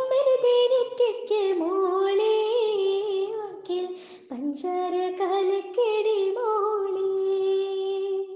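Female voice singing a slow melody with long held notes and ornamented pitch turns. The singing stops near the end, with the last note trailing off.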